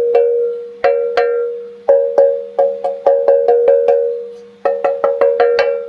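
A 3D-printed carbon-fibre PPS (PPS-CF) cowbell played in a quick rhythmic pattern of about twenty hits. Each hit gives a clank with a short ring that sounds just like metal, and a fast run of hits comes near the end.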